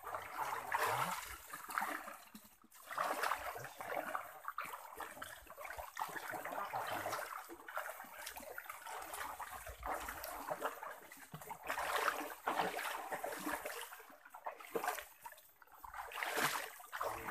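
Feet wading through a shallow, muddy stream, the water sloshing and splashing in uneven surges with each step.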